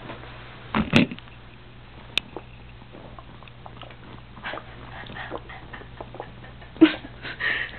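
A person's stomach growling and gurgling in irregular rumbles, with louder bursts about a second in and near the end.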